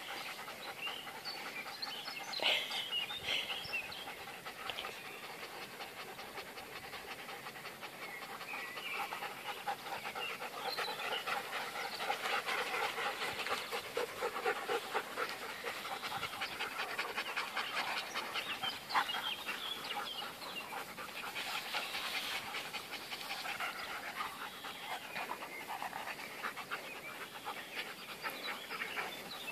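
Beauceron dogs panting fast and continuously after rough play, a little louder through the middle stretch.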